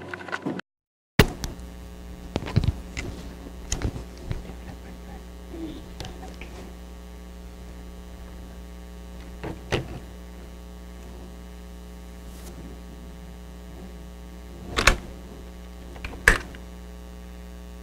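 Steady electrical mains hum, with scattered sharp clicks and knocks, the two loudest near the end. The sound cuts out completely for about half a second just after the start.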